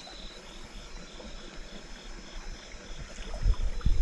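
A cricket chirps in a steady pulse, about three chirps a second, over faint stream water. Near the end, legs in waders sloshing through shallow water, with low thuds that are the loudest sounds.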